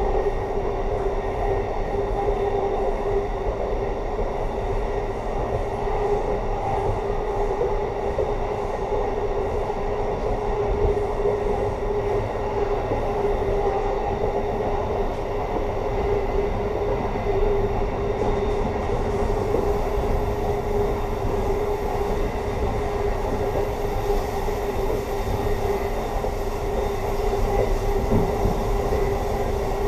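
Amtrak passenger train running steadily along the track, heard from inside its rear car: an even running rumble with a steady droning tone over it.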